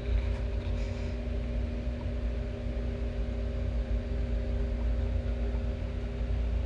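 Steady machine hum with a low rumble and a few constant tones, unchanging throughout.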